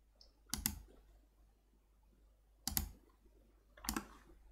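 Computer mouse clicking: a quick double click about half a second in, then single clicks past the middle and near the end.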